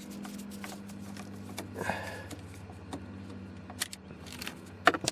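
Scattered small clicks and scrapes of a Phillips screwdriver backing out a screw and plastic trim being handled, with the sharpest clicks near the end, over a steady low hum.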